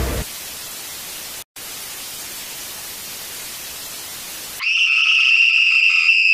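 Television static hiss, cutting out for a moment about a second and a half in, then giving way near the end to a loud, steady, high electronic tone lasting about two seconds.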